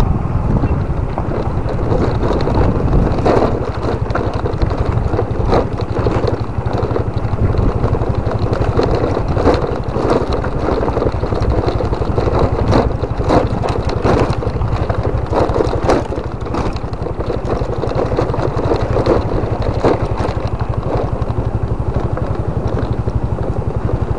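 Motorcycle engine running steadily while riding a rough dirt-and-stone track, with frequent short knocks and rattles from the bumps.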